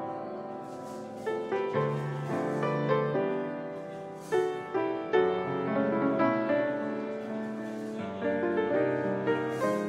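Live jazz played by a small band, led by a grand piano playing chords and runs.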